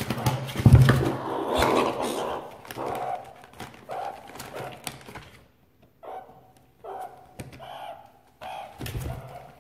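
Plastic bags crinkling and rustling as meerkats dig through them in a cardboard box, loudest in the first few seconds. In the second half, short meerkat calls come in a string of separate chirps.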